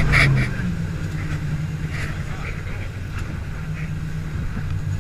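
Jet boat engine running with a steady low hum, dropping to a quieter level about half a second in as the throttle eases off.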